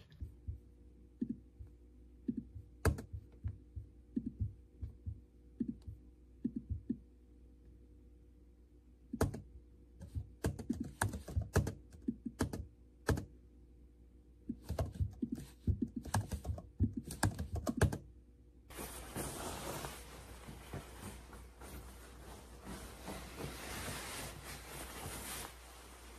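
Typing on a laptop keyboard: quiet, irregular keystrokes, sparse at first and then in quick bursts. About two thirds of the way through the typing stops and a steady hiss takes over.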